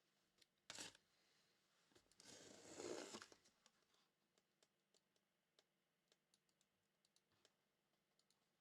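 Faint handling of trading card packaging: a sharp click, a brief tearing rustle about two to three seconds in, then a run of light clicks and taps.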